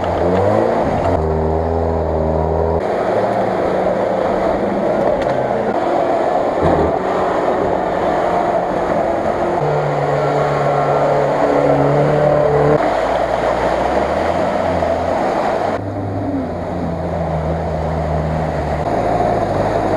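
Off-road 4x4 engines revving hard under load in a string of short clips, with wheels churning and throwing mud and water. The engine pitch holds, then jumps up or down every second or two.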